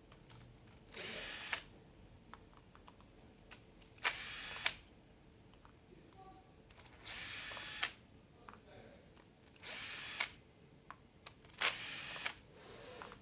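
Power screwdriver running in five short bursts, about half a second each and a few seconds apart, backing out the bolts that hold the disc rotor on an e-scooter's front wheel hub.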